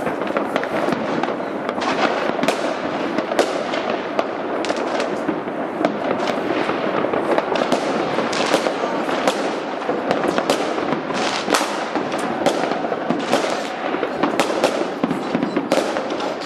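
A fireworks display going off in a dense, continuous barrage of sharp cracks and pops, many a second, over a steady rumbling wash.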